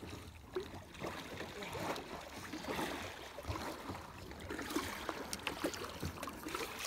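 Kayak paddling on calm water: small, irregular splashes and drips from paddle blades over a steady wash of water against the hulls.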